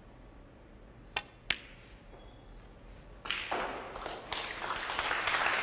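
Two sharp snooker-ball clicks about a third of a second apart: the cue tip striking the cue ball, then the cue ball striking the yellow. About two seconds later, audience applause starts and builds as the yellow is potted.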